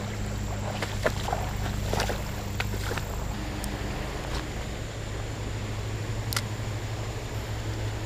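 Steady low rush of flowing creek water, with a few light clicks scattered through it.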